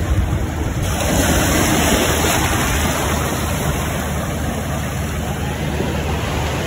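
Small waves washing onto a sandy beach: a steady rush of surf, with wind buffeting the microphone.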